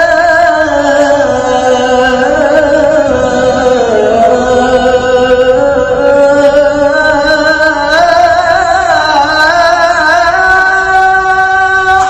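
A male muezzin chanting the adhan (call to prayer): one long, unbroken melismatic phrase, the held voice sliding up and down with quick wavering ornaments and climbing higher near the end.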